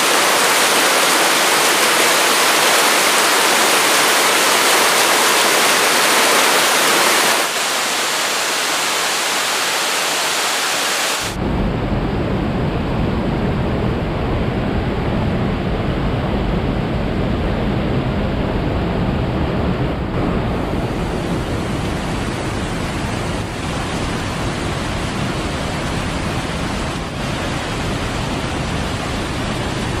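Water rushing over a waterfall and through rocky stream cascades: a loud, steady rush. The tone changes abruptly about 7 and again about 11 seconds in, and it is deeper and fuller after the second change.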